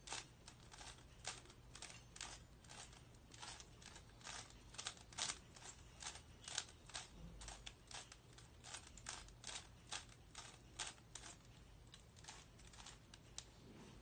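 Plastic 3x3 Rubik's Cube being twisted by hand, its layers turning with faint, quick clicks a few times a second at an uneven pace. The clicking stops near the end.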